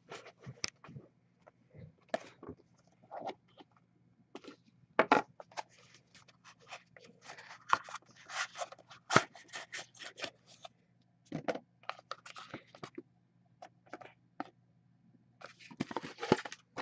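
Cardboard trading-card box of Upper Deck The Cup hockey cards being opened and emptied by hand: irregular scrapes, rustles and light taps as the box is worked open and the cards slide out and are set down. A low steady hum lies underneath.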